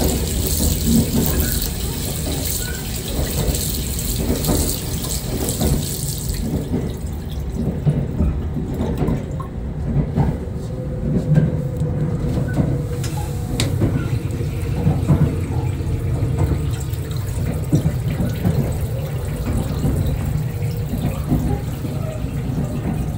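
Water running from a washbasin tap in a train's washroom, stopping sharply about six and a half seconds in. A steady low rumble of the train continues underneath.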